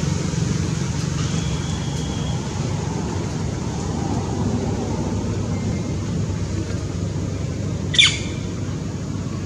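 A steady low rumble, with one short, high squawking call from an animal about eight seconds in.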